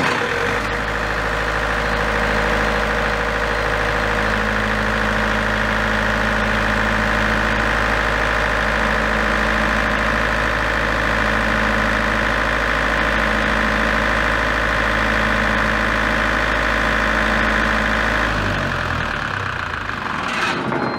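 Large Broadcrown diesel generator set starting and running at a steady speed, then shutting down about 18 seconds in and winding to a stop. The controller stops it on a generator under-voltage alarm.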